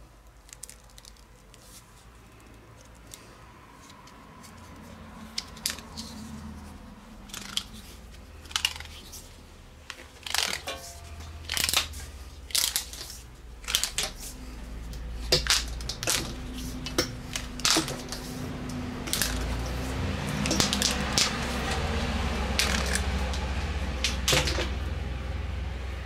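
Stripped copper wire and its plastic insulation being handled: irregular clicks, rustling and crinkling as the stiff strands are bent and pulled apart, over a low hum that grows stronger in the second half.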